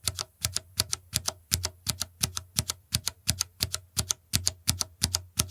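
Keys with Cherry MX Red switches, which are linear and non-clicky, being typed on in a steady stream of about four to five keystrokes a second. Each stroke is a short clack with no click, quiet as such switches go.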